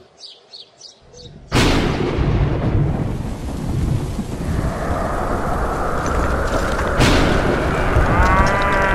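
Thunderstorm sound effect: a few faint chirps, then a sudden thunderclap about a second and a half in that gives way to a long, heavy rumble of rolling thunder and rain-like hiss, with a second sharp crack about seven seconds in.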